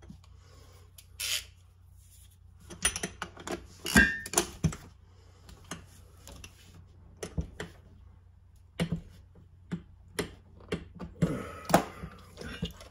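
Scattered metal clicks and knocks from a motorcycle fork tube and a hand tool being worked inside it, with one loud metallic knock about four seconds in that rings briefly.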